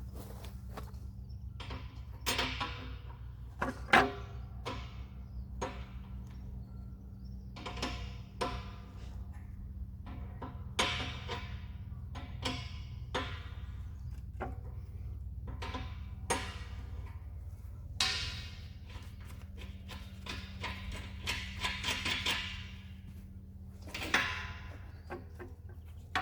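Irregular knocks, clicks and rustling from hand work on car parts, with a steady low hum underneath.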